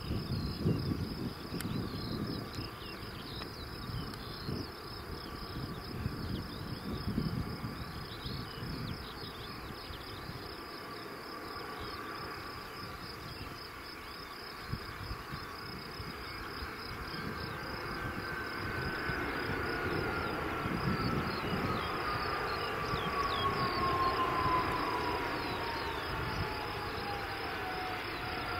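Distant jet engines of a landing Airbus A320-232 (IAE V2500 turbofans): a steady whine and low rumble on approach, then a louder rumble during the rollout with a whine that falls steadily in pitch over about ten seconds. Crickets chirp steadily throughout.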